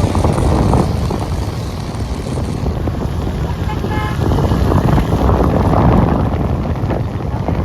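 Loud, steady low rumble with wind buffeting the microphone, and a brief horn toot about four seconds in.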